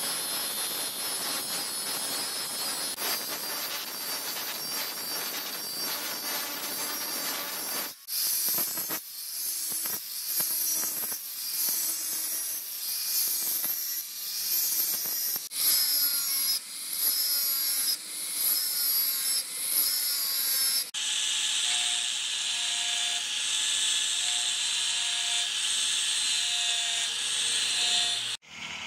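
Electric angle grinder grinding a steel knife blade made from bearing steel. It runs steadily at first; from about a third of the way in it works in short passes about one a second with brief gaps. Near the end it runs steadily again with a thin whine, the blade being smoothed with a different disc.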